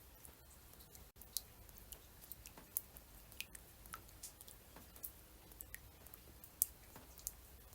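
Raindrops falling in scattered, irregular ticks and drips, a few each second, faint over a low steady hum.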